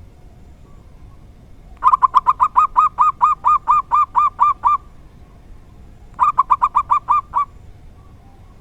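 Zebra dove (perkutut) singing: a long run of rapid, evenly spaced notes, then a shorter run about a second and a half later. This is the song pattern that keepers call 'dor tak kowor kowor'.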